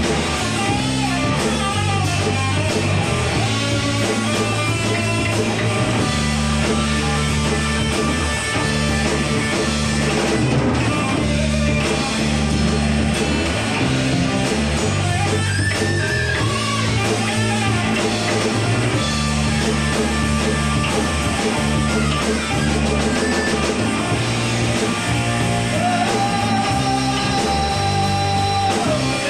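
Live rock band playing: distorted electric guitar, electric bass and drum kit together, with the bass moving between notes every second or two. A long held note sounds near the end.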